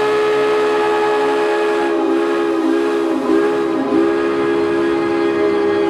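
Steam whistle blowing a long, loud chord of several steady tones at once; its pitch sags briefly four times near the middle before settling again.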